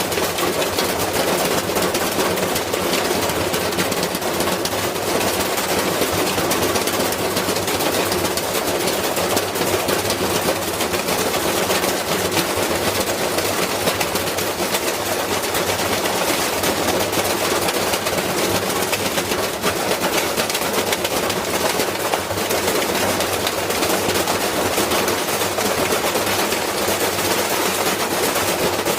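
Metal tools tumbling in a running washing machine drum: a loud, continuous rapid clatter and banging that keeps up without a break.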